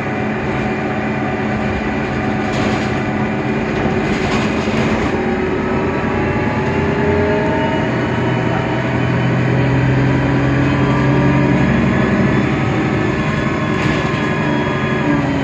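Mercedes-Benz Citaro O530 Ü city bus running with its OM 906 hLA six-cylinder diesel engine and Voith DIWA automatic gearbox. Its whining tones climb slowly in pitch through the middle, and there is a shift in the sound near the end.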